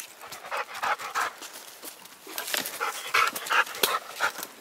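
Vizsla panting close by in quick breaths, in two runs with a short lull between them.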